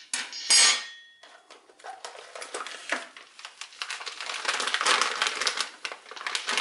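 A metal VESA mounting plate set down on a hard table with two clanks and a brief ring, followed by a plastic bag crinkling and rustling steadily as a bagged power supply is lifted out of its cardboard box and handled.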